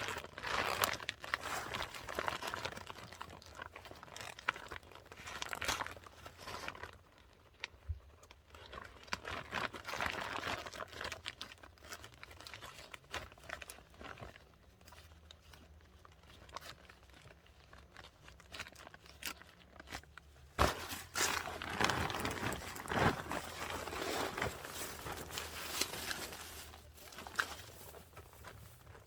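Dry corn husks and leaves being handled, crackling, crunching and tearing irregularly, with louder stretches of rustling near the start and again for several seconds from about two-thirds of the way in.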